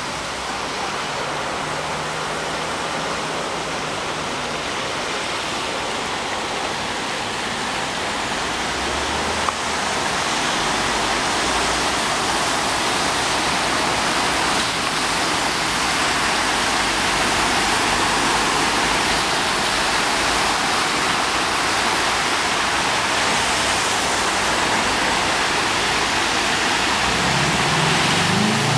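Steady rush of flowing floodwater, a little louder about a third of the way in. Near the end a vehicle's engine comes up, rising in pitch.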